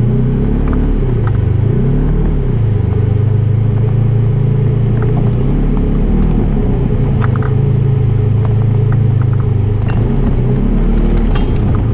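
Polaris RZR 1000 XP side-by-side's parallel-twin engine running loud, its pitch rising and falling repeatedly as the throttle is worked while driving through snow, with a few light knocks near the end.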